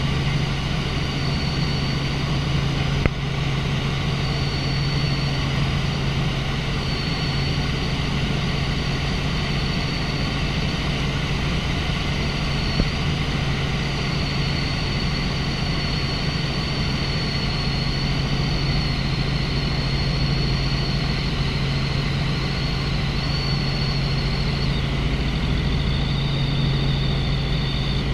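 Tour helicopter in flight: a steady low drone with a high whine above it that wavers slightly and drops a little near the end. Two faint clicks, about three seconds in and near the middle.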